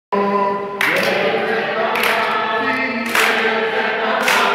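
A youth church choir singing together, with the group clapping their hands in time about once a second.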